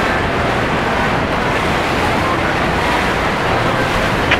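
Steady rushing noise of a cabin cruiser motoring past, its engine and churning wake blended into one even wash of sound.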